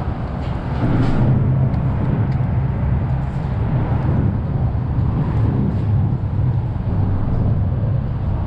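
A steady low motor rumble with a constant hum that comes in about a second in and holds.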